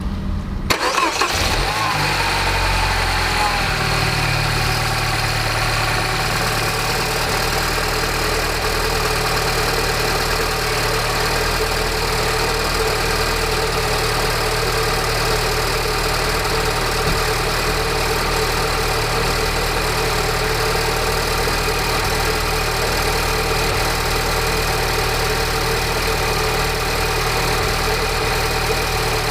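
Peugeot RCZ THP 200's 1.6-litre turbocharged four-cylinder engine cold-started about a second in, its revs falling over the next few seconds before it settles into a steady idle. It idles with a rattling noise on cold start whose cause is still unidentified, even after a new timing chain, tensioner, sprockets and guides.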